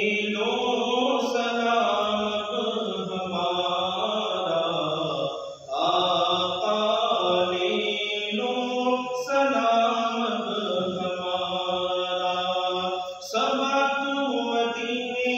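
A man's voice chanting a Salat-o-Salam, an Urdu devotional salutation to the Prophet, in long held melodic phrases, with short breaths between phrases about six and thirteen seconds in.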